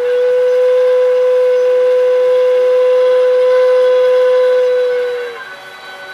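One long, loud whistle blast on a single steady note, held for about five seconds, then sagging slightly in pitch as it cuts off.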